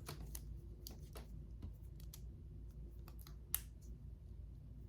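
Small plastic clicks and taps of toy parts being handled and fitted together, about a dozen light clicks with one sharper click about three and a half seconds in.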